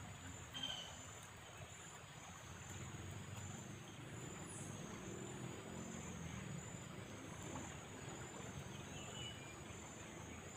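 Outdoor ambience: insects chirping in a high, steady pulsing rhythm about once a second over a low steady rumble, with a couple of short bird chirps.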